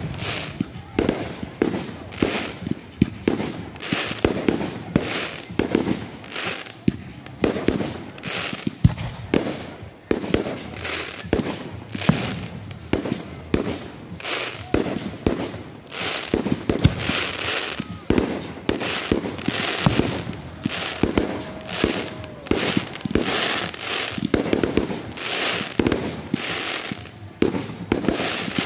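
Consumer multi-shot fireworks cake firing continuously: a rapid run of launch thumps and aerial bursts, roughly two a second, with crackling between them.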